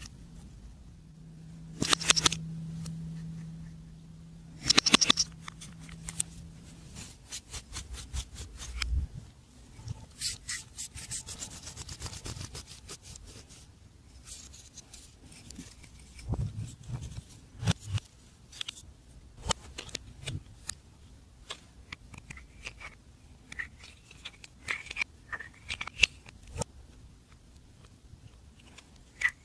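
Glossy slime being worked by hand, squished and stretched, with irregular sticky clicks and small pops. There are louder squelches about two and five seconds in, and a dense crackling stretch around ten to thirteen seconds in.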